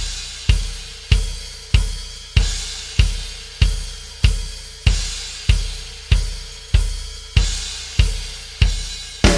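A drum kit beating out a steady pattern of about sixteen hits, a little under two a second. Each hit is a bass-drum thump together with a crashing cymbal that rings away before the next one.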